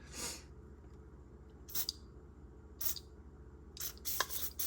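Short hissing bursts from an aerosol lubricant can, about four of them, sprayed into a stiff older Snap-on tool to free it up, with a few light clicks near the end.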